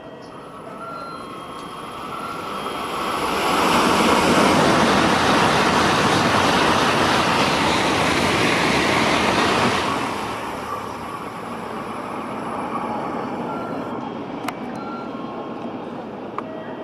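Tokaido Shinkansen train passing through the station at speed without stopping: a loud rushing noise that builds over a few seconds, holds for about six seconds, then dies away.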